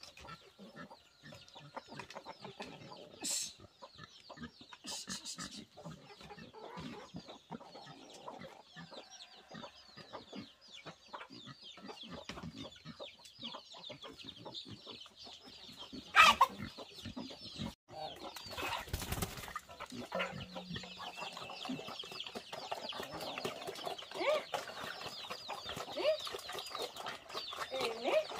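Chickens clucking with a dense chatter of high peeping chicks. One loud sharp falling cry about sixteen seconds in, and a brief rush of noise a couple of seconds later.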